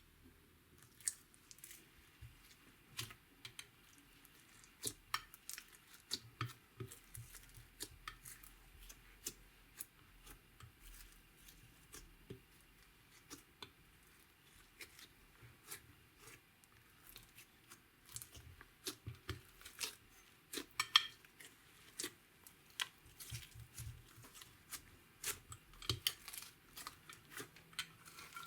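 Clear slime being mixed and worked by hand with makeup and glitter, giving a run of irregular sticky clicks and pops.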